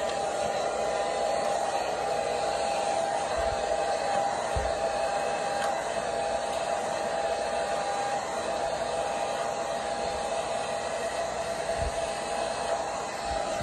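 Handheld hair dryer with a pick-comb attachment blowing steadily: an even rush of air with a constant whine from its motor. A few soft low bumps come through as it is worked through the hair.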